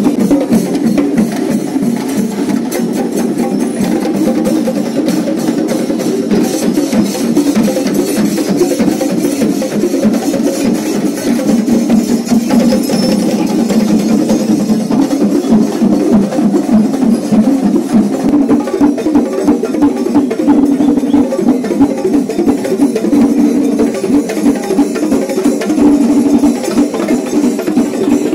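A Kerala temple-festival drum ensemble playing fast, dense stick-struck drumming that runs on without a break.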